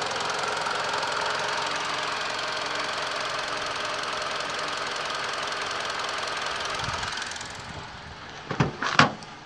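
2007 Mitsubishi Outlander's 2.4-litre four-cylinder MIVEC petrol engine idling steadily with the bonnet open. It drops quieter after about seven and a half seconds. Near the end come two sharp clunks of the driver's door handle and latch being opened.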